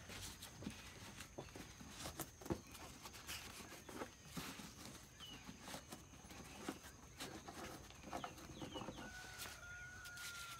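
Cured tobacco leaves rustling, with small crackles, as they are pressed and rolled by hand into a cigar. Chickens cluck faintly, with one drawn-out call near the end.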